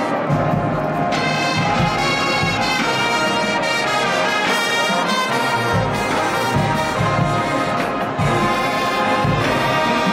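Show-style marching band's brass section playing loud, full held chords, with recurring low pulses underneath.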